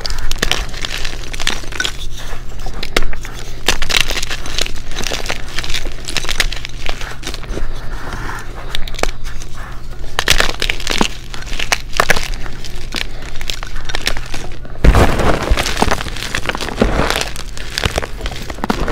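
Blocks of gym chalk being snapped and crushed by gloved hands in a bucket: a continuous run of dry cracks and crunches. In the last few seconds it turns into denser crumbling with low thumps.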